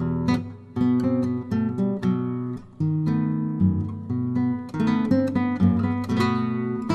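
Acoustic guitar music: plucked notes and strummed chords, each note ringing and fading before the next.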